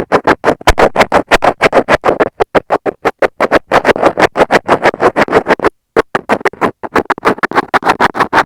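Metal tweezers worked against the microphone of Apple earbuds, close-miked: a rapid, even run of scratchy clicks, about five or six a second, with a brief pause about six seconds in.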